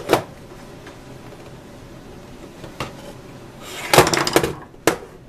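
Plastic housing of a Singer Graflex Study Mate II filmstrip viewer being handled on a tabletop: a few scattered clicks and knocks, then a burst of rattling clatter about four seconds in as the case is gripped and worked in the hands.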